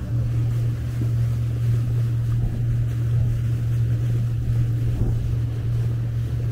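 Motorboat cruising: its motor makes a steady low drone, with wind on the microphone and water rushing past the hull.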